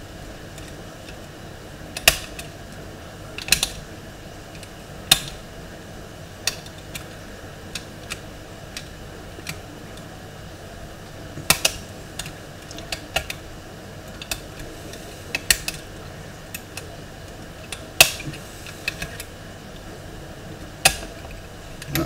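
Metal lock picks clicking against the levers inside an Era 5-lever mortice lock during picking: irregular sharp clicks and small ticks, a few of them much louder than the rest.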